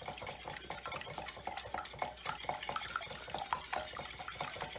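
Wire balloon whisk beating raw whole eggs in a mixing bowl, a rapid run of light clicks and taps as the wires strike the bowl's sides.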